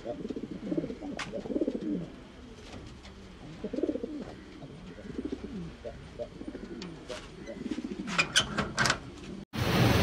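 Lahori pigeons cooing repeatedly in low, rolling coos, with a few sharp clicks near the end. About nine and a half seconds in, it cuts to a louder, steady rushing noise.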